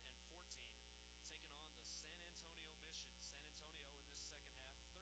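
Faint murmur of a waiting crowd's scattered voices over a steady electrical mains hum.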